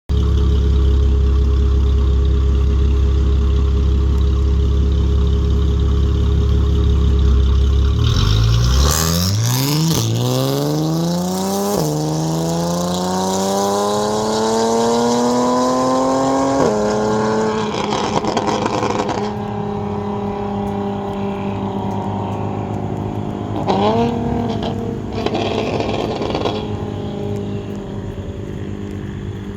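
Straight-piped Audi S4 exhaust: a steady, deep engine drone, then about eight seconds in a hard acceleration with the pitch climbing through two upshifts, each a sudden drop in pitch. It then settles to a steadier note, with a short sharp burst about 24 seconds in.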